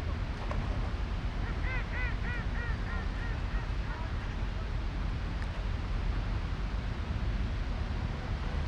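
City park ambience: a steady low rumble, with a bird calling a quick run of about eight short repeated notes, fading, between about one and a half and three and a half seconds in.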